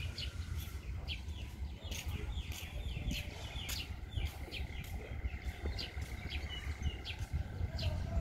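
Birds chirping in short, quickly repeated falling calls over a steady low rumble.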